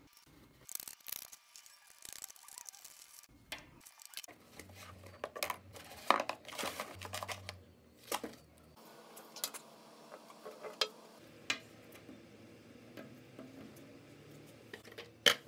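Hands handling cardboard and a plastic capsule on a tabletop: scattered taps, clicks and rustles, with one sharp knock near the end.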